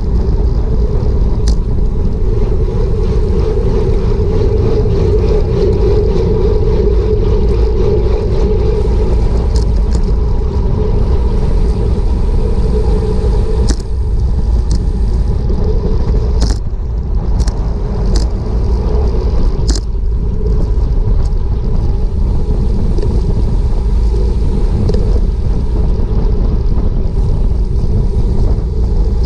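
Heavy wind buffeting on a bicycle-mounted action camera's microphone at racing speed, about 25 mph, with road-bike tyre noise on asphalt underneath. A handful of sharp clicks come about halfway through.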